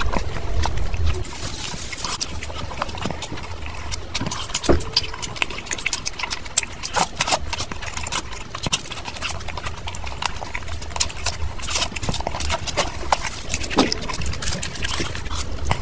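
Close-miked eating sounds: a woman chewing and smacking her lips on spicy chicken curry and puri eaten by hand, a dense, irregular run of wet clicks and smacks.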